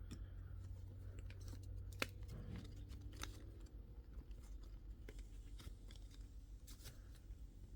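Trading cards and their packaging being handled: faint scattered clicks and rustling, with a sharper click about two seconds in.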